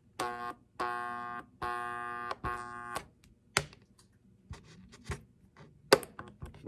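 Jammed Rivarossi 0-8-0 model locomotive motor buzzing at a steady pitch in four short bursts as power is applied through test leads, stalled and not turning because something is lodged inside the motor. Several sharp clicks follow, the loudest about six seconds in.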